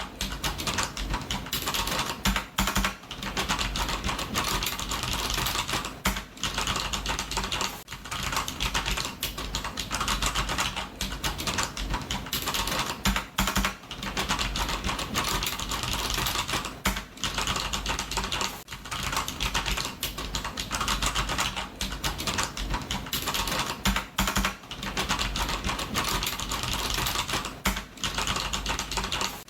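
Computer keyboard typing: rapid, continuous key clicks with short pauses every second or two.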